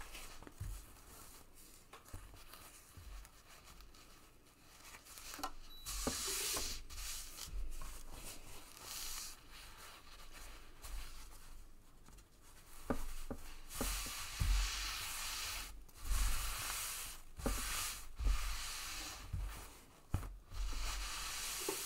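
Fabric and foam stabiliser rustling and rubbing as a patchwork pocket is handled and smoothed on a cutting mat, in irregular bursts with soft bumps.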